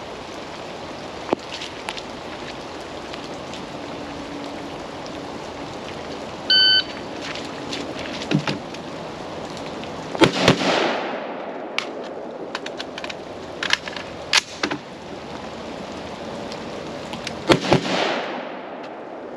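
A shot timer beeps, and a few seconds later an AR-15 rifle fires a quick pair of shots. Clacks and clicks of a magazine reload follow, then a second quick pair of shots near the end. Steady rain falls underneath.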